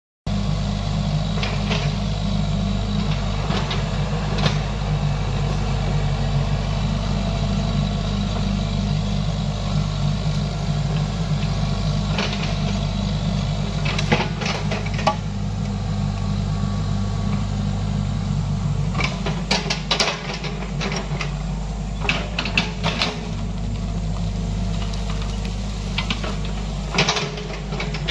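XCMG XE55DA mini excavator's diesel engine running steadily as the machine digs, with intermittent knocks and clanks from the bucket and boom working the ground. The knocks come in clusters about halfway through and near the end.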